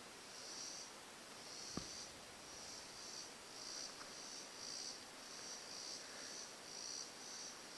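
Insects chirping in a steady rhythm of high pulses, about two a second, with one sharp knock nearly two seconds in.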